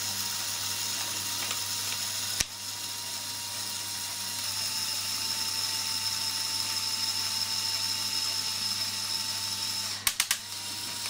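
Lego Technic 9397 logging truck's electric motor and plastic gear train running steadily with a whine, driving the grapple open and shut. A sharp click sounds about two and a half seconds in, and a few quick clicks come near the end.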